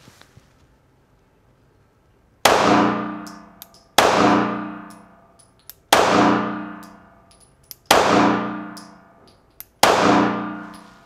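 Five shots from a Springfield Armory XD-S 9mm subcompact pistol with a 3.3-inch barrel, fired at a steady pace about two seconds apart. Each shot is followed by a long ringing decay lasting more than a second.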